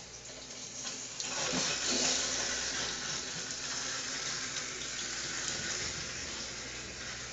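Water running from a faucet into a sink bowl and down its newly installed drain during a leak test. The flow swells about a second in and then runs steadily.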